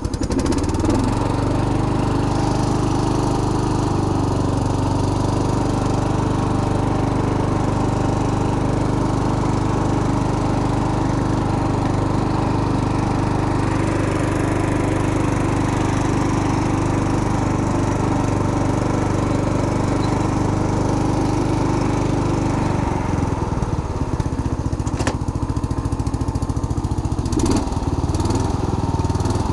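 Lawn tractor engine running at a steady speed while driving, its throttle worked by a home-made foot pedal. About 23 seconds in, the engine note changes and turns uneven. Two sharp clicks follow near the end.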